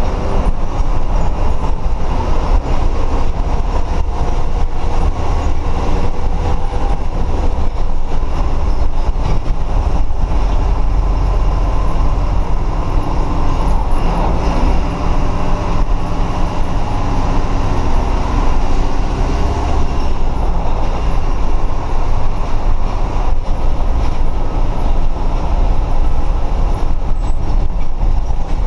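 Mercedes-Benz city bus under way, heard from the driver's cab: a steady, low diesel engine rumble mixed with road and rain noise.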